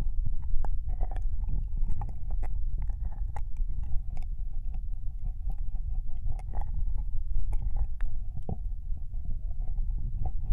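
Ear-licking ASMR on a binaural microphone: wet licking and mouth sounds right at the ear, many short sticky clicks over a continuous low rumble.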